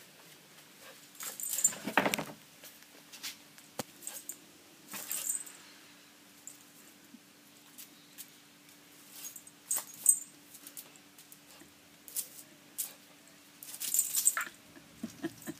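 Jack Russell puppy's claws clicking and scraping on a tiled floor in scattered short bursts as it pounces and paws at a bug, loudest about two seconds in, around ten seconds and in a cluster near the end.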